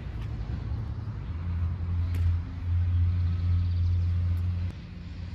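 A motor vehicle engine running steadily as a low hum that swells about a second in and drops off sharply near the end. A faint knock about two seconds in.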